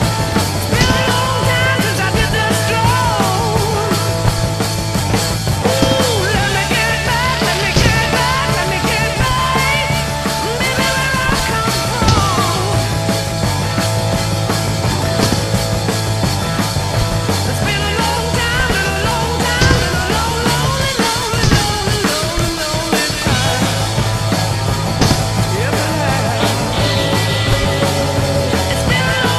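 Loud rock music with a steady bass line and drums, and a singer's voice over it.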